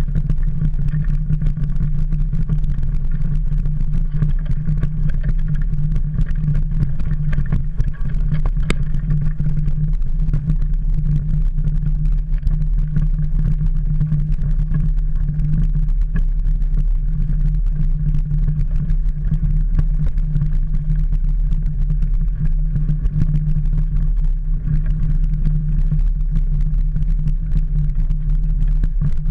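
Ride noise from a camera fixed to a mountain bike's handlebar as it rolls downhill over dirt and gravel: a steady low rumble of wind and vibration, with a constant scatter of small knocks and rattles from the bike going over the rough ground.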